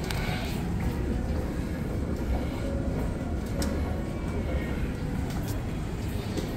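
Steady low rumble of background noise with a few faint clicks.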